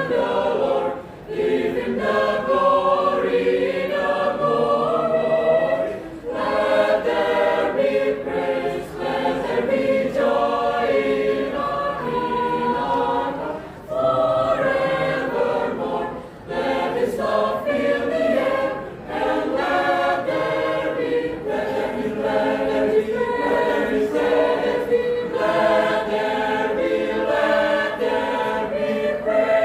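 Church choir singing a sacred song in several parts. Sustained phrases are broken by short pauses about every few seconds.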